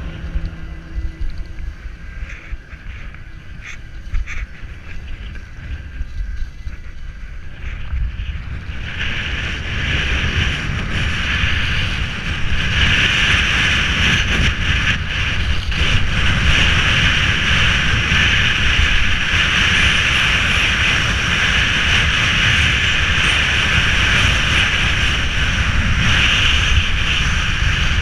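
Skis sliding and hissing over packed snow with wind rumbling on a GoPro's microphone. The sound is quieter with a few light ticks at first, then grows louder about nine seconds in as the skier gains speed downhill, and stays loud.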